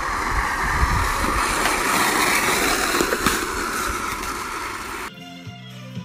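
Skateboard wheels rolling fast down an asphalt street, a steady rushing noise with a low rumble and a few sharp clacks. About five seconds in it cuts off abruptly to music with a beat.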